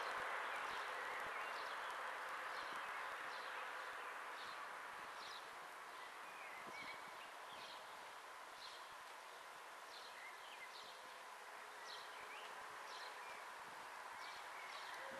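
Small birds chirping, short high calls repeating every second or so, over a low rush of road traffic that fades away over the first few seconds.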